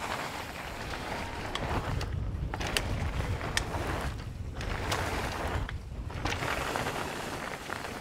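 Mountain bike riding fast down a dirt trail: wind buffeting the microphone and a steady rumble of tyres on dirt, with scattered clicks and rattles from the bike and a few short lulls.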